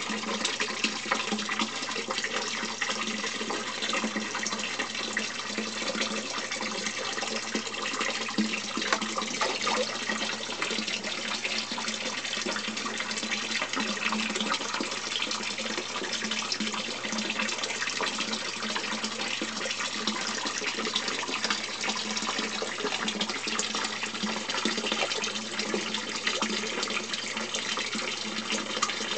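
Water steadily splashing and pouring into an indoor koi tank, as from a filter return or small waterfall, with a low steady hum underneath.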